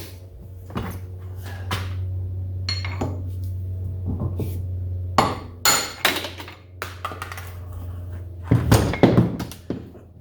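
Hammer blows and metallic clinks at irregular intervals as a heated wheel bearing is beaten out of a Kawasaki KX450F wheel, over a steady low hum.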